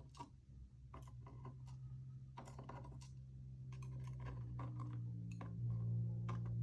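Small metal lock pins and springs clicking and tapping as they are set out one by one on a hard surface, with irregular light clicks. A steady low hum runs underneath and grows louder near the end.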